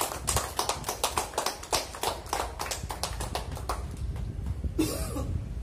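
A few people clapping unevenly by hand, the claps thinning out and stopping about four seconds in. A short, louder burst of noise comes near the end.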